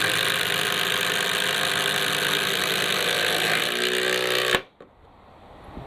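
Cordless impact driver hammering as it drives a screw into timber, a steady rapid rattle that cuts off abruptly about four and a half seconds in.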